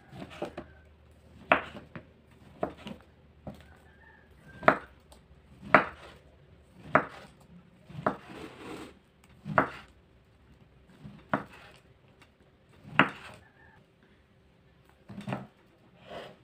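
Kitchen knife slicing through a block of tempeh, each cut ending in a sharp knock of the blade on a wooden cutting board, about one knock a second at an uneven pace.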